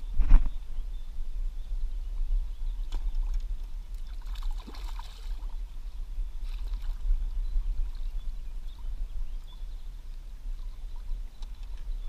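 Hooked fish being landed in shallow river water: water splashing and sloshing around the fish and the landing net, with a sharp knock about a quarter second in and a louder splash around the middle, over a steady low rumble.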